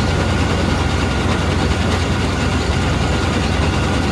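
Large farm machine's engine running steadily at a constant speed, a deep even hum.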